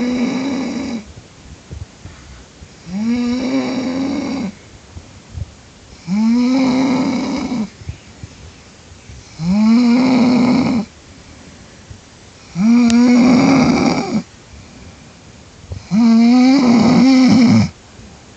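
A woman snoring loudly and regularly: six long pitched snores, one about every three seconds. Each one slides up briefly in pitch at its start and then holds steady.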